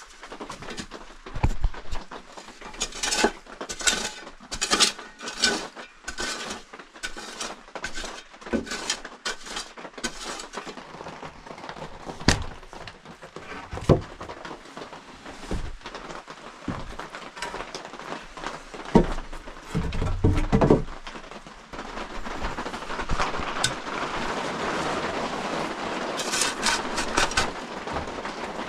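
Hand-tool work in packed earth and wood: irregular knocks, thuds and scrapes as clods and chunks are struck and moved, the heaviest blows about two-thirds of the way in. A steady hiss then comes in and runs under a few more knocks.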